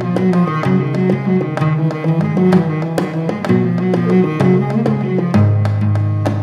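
Instrumental background music: plucked strings carrying a melody over a low bass line, with hand drums striking a steady beat.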